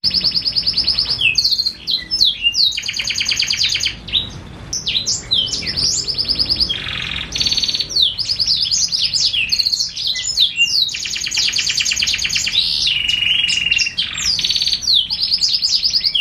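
Domestic canary (kenari) singing a long, unbroken song of fast rattling trills and quick sweeping notes. It is the tutor canary whose song is used as material to train young canaries.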